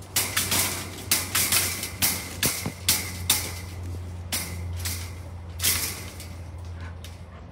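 Irregular metallic clanks and rattles, about a dozen sharp knocks, from a wire transport cage being worked at by hand to free a jammed piece of wire. A low steady hum runs underneath.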